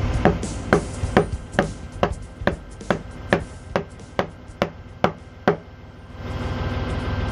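A framing chisel being struck repeatedly with a mallet as it chops into green oak, about thirteen sharp, even blows at roughly two a second that stop about five and a half seconds in.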